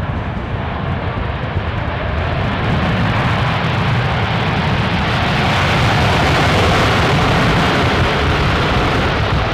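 Jet engine noise from a Boeing 747-8F's four GEnx turbofans on its landing roll, building over the first few seconds and then holding loud and steady.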